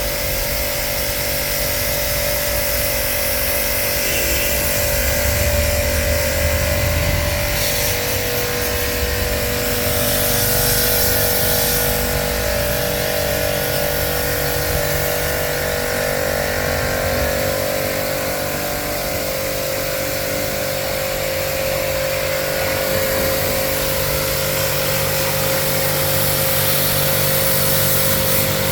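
A small machine's electric motor running steadily with a constant hum, with a brief stretch of louder hiss around ten seconds in.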